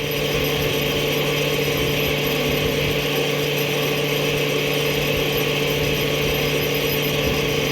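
Combine harvester running steadily: a constant low hum and a higher whine, with a broad mechanical hiss over them.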